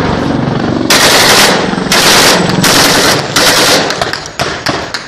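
Close, very loud automatic gunfire in long bursts: four bursts of about half a second each in the first four seconds, then a few shorter ones. A steady helicopter drone is heard before the firing starts.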